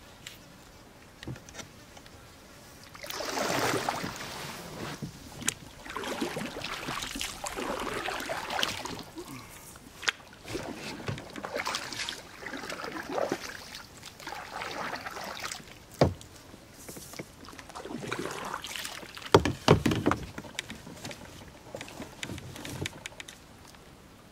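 Water splashing and swishing as a small boat is worked by hand through flooded brush, in surges a second or two long. A few sharp knocks on the hull come between them, loudest about two-thirds of the way through and again near the end.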